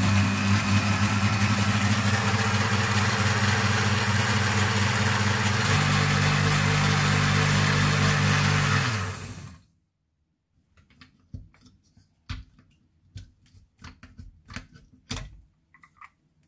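Electric blender running for about nine and a half seconds, blending soaked prunes, cranberries and honey-pickled lemon in liquid; its hum steps up slightly about six seconds in, then the motor winds down and stops. A scatter of light clicks and knocks follows.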